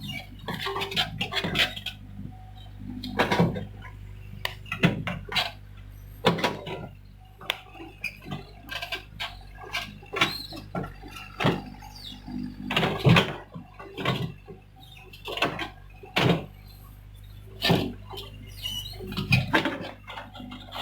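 Hyundai hydraulic excavator's diesel engine running steadily under a stream of irregular knocks, clanks and scrapes from the bucket working soil and stones.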